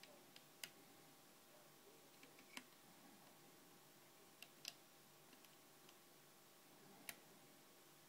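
Faint, irregularly spaced metallic clicks from a 2-in-1 pick working the levers of a 7-lever gun cabinet lock: single sharp ticks a second or two apart, with a few weaker ones between.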